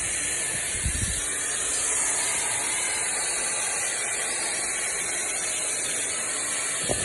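A loud, steady hiss, strongest in the high range, that cuts off abruptly just after the end, with two soft knocks, one about a second in and one near the end.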